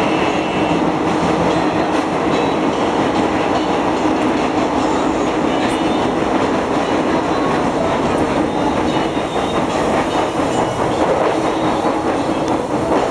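Steady running noise of a moving electric commuter train, heard from inside the carriage.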